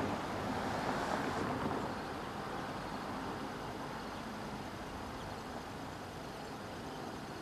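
Outdoor rumble of a passing road vehicle that fades over the first two seconds, leaving a steady background hum.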